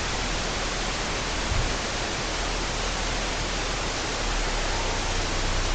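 Steady, even hiss of camera microphone noise, with a faint low bump about a second and a half in.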